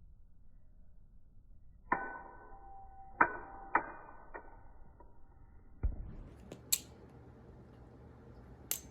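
Balisong (butterfly knife) being flipped: its handles clack together in sharp metallic clicks, each with a short ring, three or four in the first half. A dull thump comes in the middle, followed by a few sharper clicks near the end.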